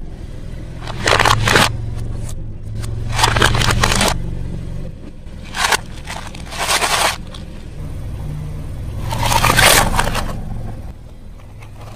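Plastic toy cars cracking and crunching as a car tyre rolls over and crushes them: several separate bursts of snapping and scraping plastic, the longest and loudest near the end, over a steady low rumble.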